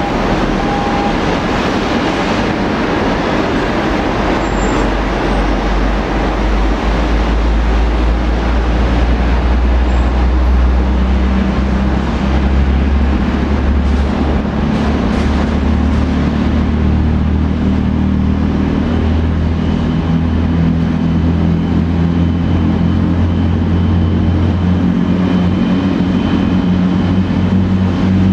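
Boeing 787-8 airliner running on the ground beside its tug: a steady low rumble with a hum that grows stronger and steps up slightly about ten seconds in.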